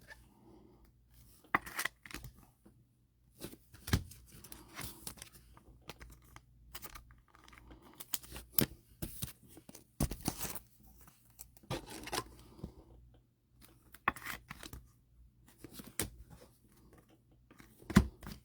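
Trading cards and their foil pack wrappers being handled at close range: irregular soft rustles, short tearing sounds and light clicks.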